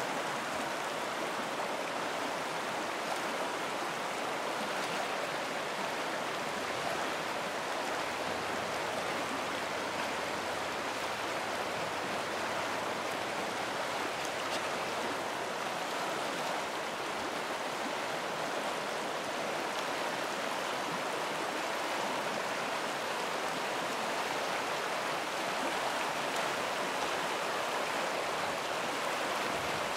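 Chama River rushing over shallow, broken riffles: a steady, even rush of flowing water.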